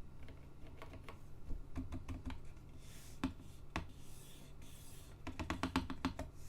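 Typing on a homemade 68% mechanical keyboard with first-generation Space Invader switches. The key strokes come in short runs, with two single strokes standing out near the middle and a quick run of strokes near the end.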